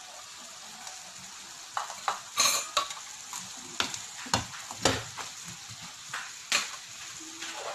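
Diced potatoes and carrots frying with ground meat in a frying pan, a steady sizzle, while a wooden spatula stirs them and scrapes against the pan in a series of sharp strokes from about two seconds in.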